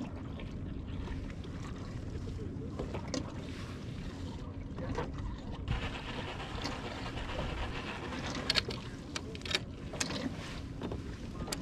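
Wind buffeting the microphone and water sloshing around a sit-on-top fishing kayak, with scattered sharp clicks and knocks from fishing gear being handled.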